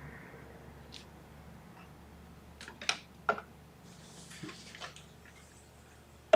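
A few light clicks and taps, with a faint soft rustle midway, from a model airplane being handled on a centre-of-gravity balancer.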